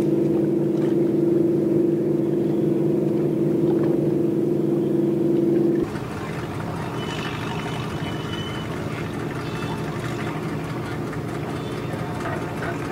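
Steady drone of a boat engine holding a fixed hum. About six seconds in it cuts abruptly to a somewhat quieter, rougher engine sound.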